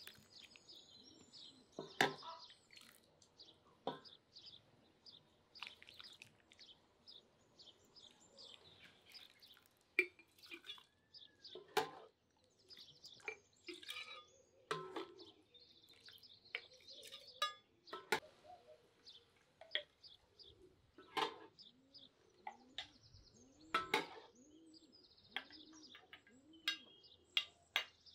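Birds chirping and calling outdoors in many short calls, with a sharp knock or clink every few seconds, like kitchen utensils being handled.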